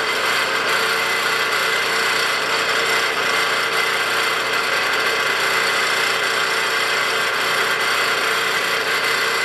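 Mill spindle of a 3-in-1 lathe-mill running steadily, a constant motor and gear whine with several steady tones.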